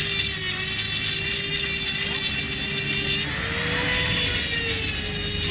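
A workshop machine's motor runs steadily with a whine and a high hiss. About three seconds in the hiss drops and the pitch rises for a second or so, then settles back.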